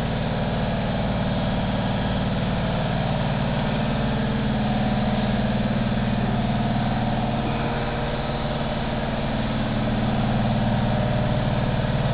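Valuemaster 17-inch drill press running steadily under power, its motor giving an even, unbroken hum.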